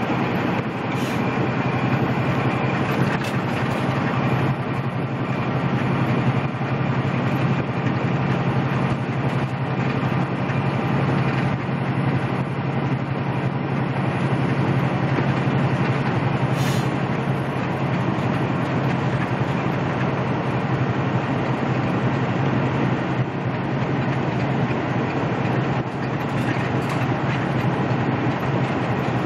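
Steady in-cab noise of a Peterbilt semi truck cruising at highway speed: a constant low engine drone over the wash of tyres on wet pavement.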